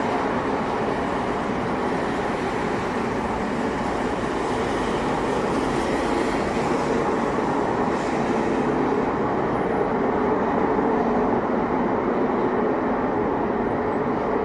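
Steady, unbroken droning hum, a rushing rumble like a spaceship taking off, from a source the recordist could not identify and judged not to be aircraft, a railway or traffic.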